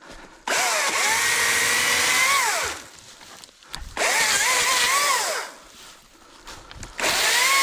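ECHO DCS-2500T battery top-handle chainsaw cutting a dead pine in three bursts, each a second and a half to two seconds long, with short pauses between. The electric motor's whine rises and falls within each burst and dies away as the trigger is let go.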